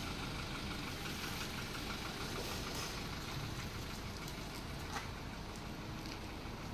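Hyundai Starex D4CB four-cylinder common-rail diesel idling steadily after its hard-starting fault has been worked on, with a single short click about five seconds in.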